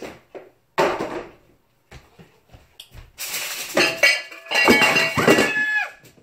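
Metal pots and a lid clanking and scraping on a stovetop, with ringing clangs, the clatter loudest over the last three seconds.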